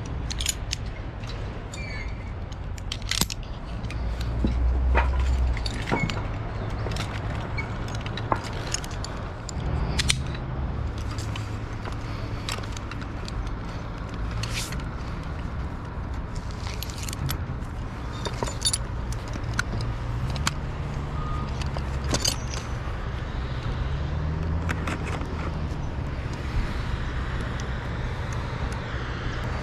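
Scattered sharp clicks and metallic clinks of work gear and tools being handled, over a steady low engine rumble that swells about four to six seconds in.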